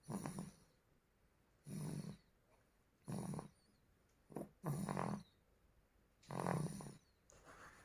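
A two-month-old baby snoring in its sleep: a string of short rasping snores, about one every second and a half.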